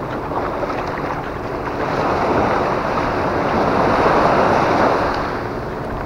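Small waves washing onto a sandy beach, with wind buffeting the microphone. The surf swells louder about two seconds in and eases again near the end.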